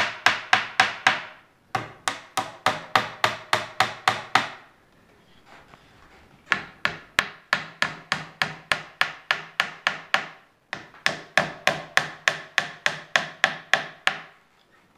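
Wooden mallet lightly tapping pins into the joints of a wooden desk leg: quick wood-on-wood knocks about five a second, in several runs with a pause of about two seconds in the middle.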